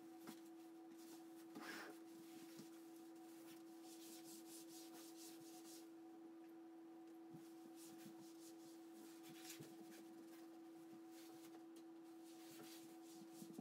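Faint rubbing and light scuffs of a cloth wiping a wooden floor, over a steady humming tone.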